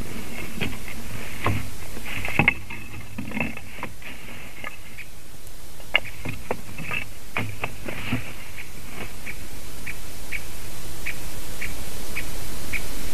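Twigs and dry grass of a white-tailed eagle's stick nest rustling and snapping in irregular short clicks and scrapes as the eagle works the nest material, ending in a run of short, evenly spaced ticks.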